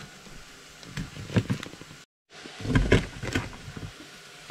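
Broad-bladed kitchen knife chopping through food onto a plastic cutting board: a few separate knocks, a brief dropout about two seconds in, then a quicker run of chops.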